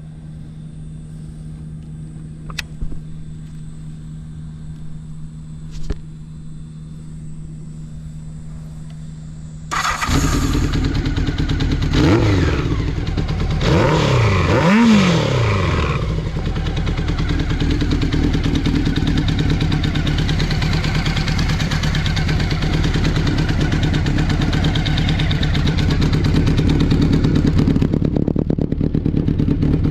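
A steady low hum, then about ten seconds in the Honda CBX750F's inline-four comes in suddenly and loud through its Yoshimura Cyclone short 4-into-1 exhaust, is revved twice in quick blips, then runs steadily at idle. It is a cold start that the seller calls good, with no abnormal noises.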